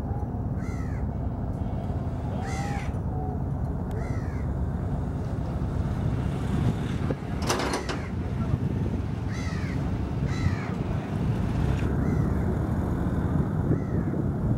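Crows cawing, single harsh caws a second or two apart, over a steady low rumble of river boat traffic. A short sharp noise cuts through about halfway.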